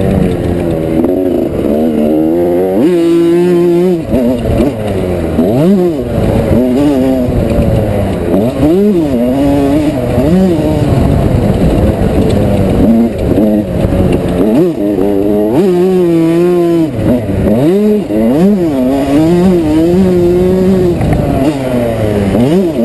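1987 Yamaha YZ125's 125 cc two-stroke single-cylinder engine being ridden hard. Its pitch climbs and drops again and again as the throttle is opened and shut and gears are changed.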